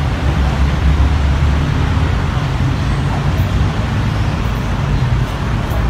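Steady road traffic noise: a continuous low rumble with a hiss of passing vehicles, loud and unbroken.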